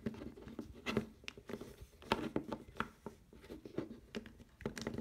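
3x3 Rubik's cube being turned by hand, its plastic layers giving a run of light, irregular clicks and clacks as they rotate.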